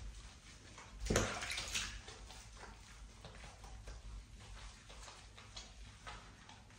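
Shallow bathwater in a bathtub splashing and sloshing quietly around a cat being held and lathered, with a louder burst of splashing about a second in.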